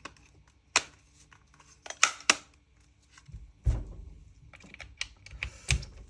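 Sharp clicks and knocks of gun parts handled and fitted together: the stock of a Krytac Kriss Vector gas-blowback airsoft gun being put back on, with a duller thump about halfway through.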